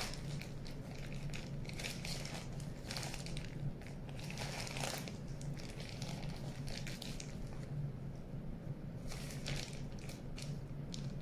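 Plastic bag crinkling and rustling in irregular bursts as hands squeeze and scrape crumbly rice-flour and glue dough off it, over a steady low hum.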